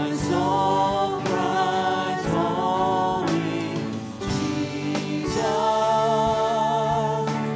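Live worship music: several women's voices singing a worship song together in harmony, with long held, wavering notes, over a small band with keyboard and guitar.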